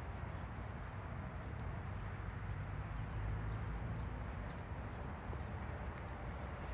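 Steady low rumble of wind buffeting the microphone, with a few faint, short, high bird chirps scattered through it.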